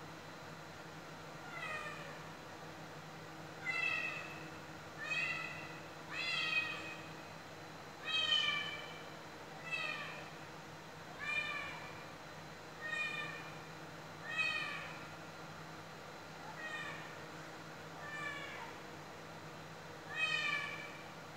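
A cat meowing over and over, about a dozen meows one to two seconds apart, each falling in pitch at its end.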